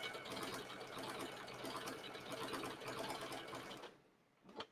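Sewing machine stitching through pieced leather scraps, running steadily, then stopping about four seconds in.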